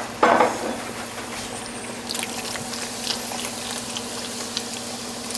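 Beer-and-stock braising liquid bubbling around short ribs in a skillet, a steady simmer with scattered crackles and a few light clicks. A brief loud clatter comes at the very start.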